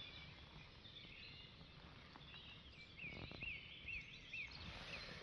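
Faint outdoor quiet with a small bird singing a run of about five short repeated notes in the second half, and a few soft rustles close by.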